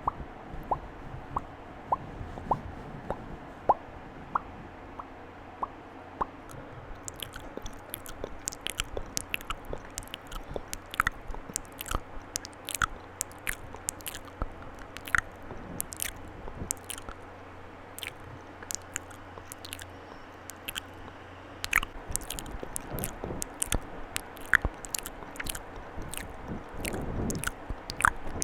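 Close-up ASMR wet mouth sounds: clicks and pops made with the mouth, slow and evenly spaced at first, then a quick, irregular stream of clicks from about six seconds in.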